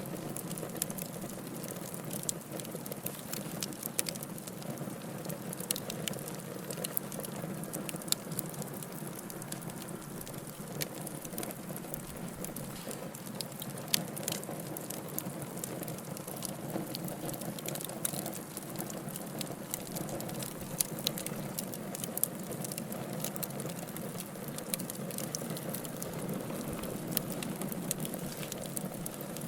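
Campfire burning with continual crackling and irregular sharp pops over a steady low rush of flame.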